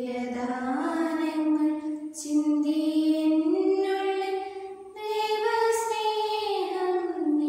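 Two girls' voices singing a slow prayer song together, holding long notes that step up and down in pitch, with brief breaths between phrases about two and five seconds in.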